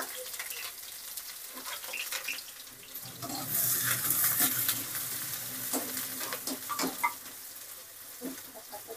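Chopped onions sizzling in hot oil in a kadai, freshly added and being stirred with a wire mesh frying spoon that scrapes and taps against the pan. The sizzle swells about three and a half seconds in.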